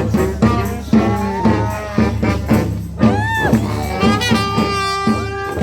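Honk-style street brass band playing: saxophones, trumpets and trombones over a steady beat about twice a second, with a swooping bent note about three seconds in and long held notes near the end.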